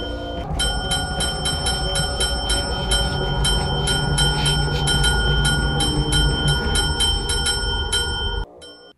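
A small brass tap bell struck rapidly and insistently, about three to four dings a second, over a low steady background; the ringing stops abruptly near the end.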